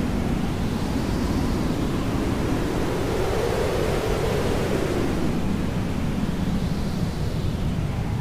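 Hair dryer running steadily: a continuous rushing noise whose tone slowly swells and dips over a few seconds.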